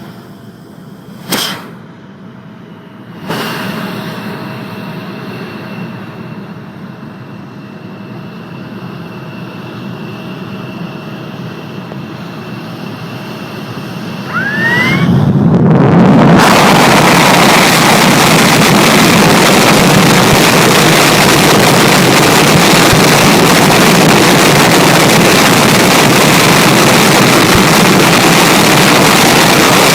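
Jet engine running with a steady whine over a rushing hiss, then a sudden jump about halfway through to a much louder, steady roar.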